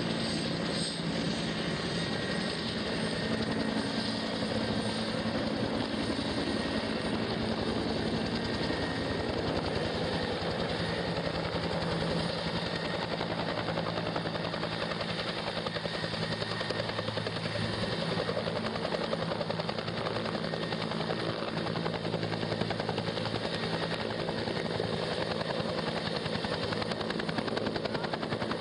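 Helicopter running steadily nearby, its rotor blades making a fast, even chop over the engine's steady drone.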